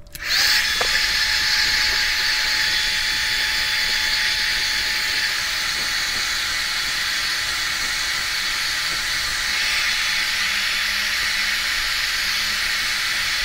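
Philips ThermoProtect hair dryer switched on, spinning up with a short rising whine, then running steadily while blow-drying hair: an even rush of air with a faint steady whine.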